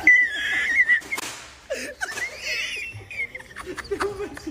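Laughter: a high, squealing laugh in the first second and another around halfway, with lower chuckling near the end.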